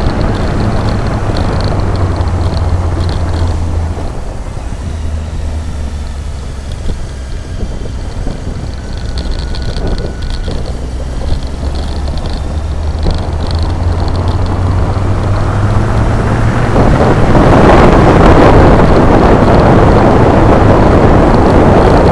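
Motorcycle engine running under way with heavy wind noise on the microphone. The engine note drops about four seconds in and rises again past the middle, and the wind rush swells loudly near the end as the bike picks up speed.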